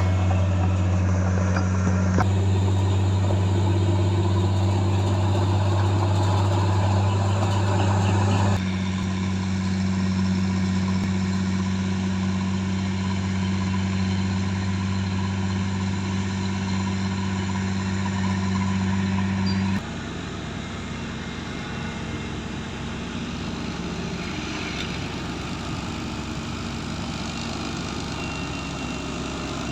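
Heavy diesel construction machinery running steadily with a strong low hum. The sound changes abruptly three times as the footage cuts, and after the last change, about two-thirds of the way through, it becomes a rougher engine noise without the hum.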